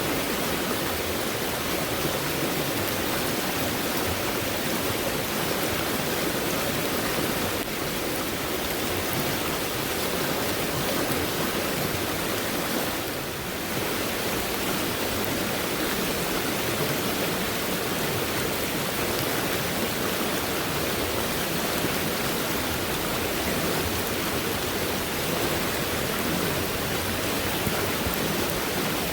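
Fast-moving stream swollen by heavy rainfall, its water rushing in a steady, even hiss, briefly a little softer about halfway through.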